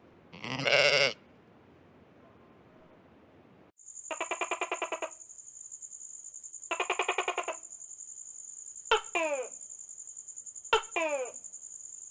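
A sheep bleats once, loudly, near the start. After a pause, a steady high whistle sets in under two buzzy, rapidly pulsing notes and three quick falling chirps; this part sounds electronic and music-like.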